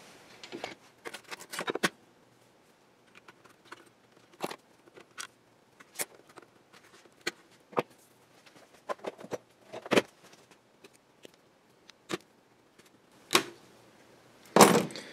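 Sparse, quiet clicks and taps of small hand tools, wire and a plastic computer case being handled on a workbench, a second or two apart, with wire cutters working on the battery leads near the end.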